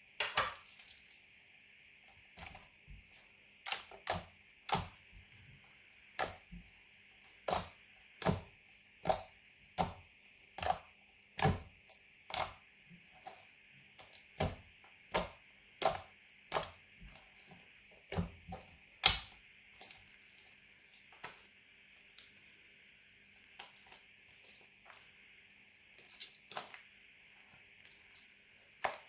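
Glitter slime being handled, giving a long series of sharp pops and clicks, about one a second for the first two-thirds and sparser near the end, over a faint steady hiss.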